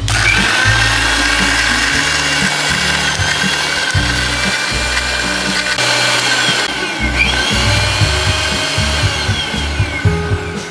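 Electric mixer-grinder starts abruptly and runs at speed with a steady whine, blending yogurt, sugar and ice cubes into lassi. Its sound dips and glides briefly about seven seconds in, then runs on until it stops at the end.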